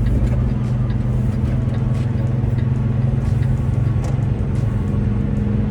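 Semi-truck's diesel engine and road noise heard inside the cab while driving: a steady low drone.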